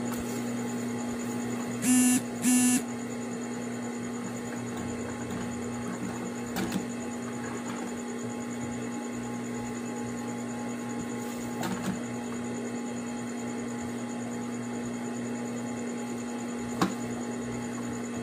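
Juki industrial sewing machine running in two short bursts about two seconds in, stitching a brief tack seam, over a steady electrical hum; a few light clicks follow later.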